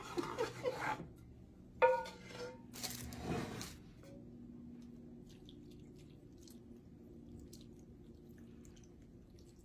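Wooden spoon scraping and stirring in a stainless-steel frying pan, with a sharp knock of the pan about two seconds in and a brief scrape a second later. The rest is quieter, with faint scraping ticks as the cream and drippings are poured and spooned out of the pan.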